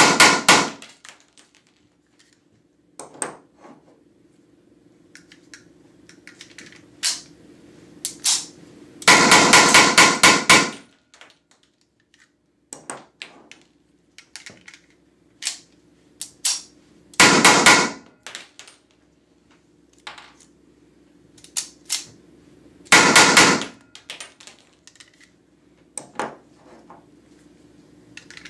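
Weihrauch HW94 9 mm P.A.K. blank pistol firing Umarex PTS blank cartridges in quick strings into a foil-wrapped box. One string ends just at the start, and three more come roughly every seven seconds. Lighter single clicks and clacks of handling fall between the strings, over a steady low hum.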